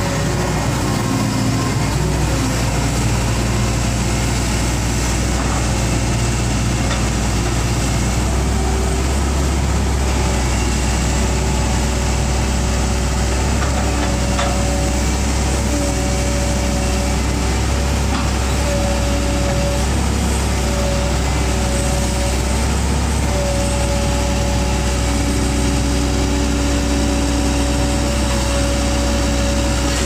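Hitachi crawler excavator's diesel engine running steadily with a deep hum, with a higher steady tone that comes and goes.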